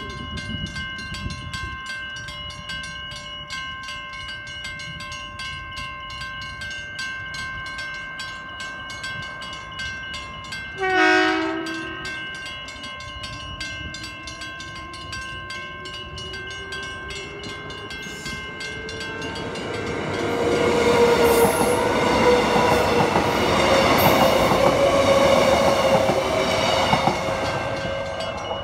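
Level crossing warning bells ring steadily with a rapid even pulse. About eleven seconds in, a Transperth electric train sounds a brief horn blast. Its motor whine then rises in pitch as it accelerates, and in the last several seconds it passes loudly with wheel noise while the bells keep ringing.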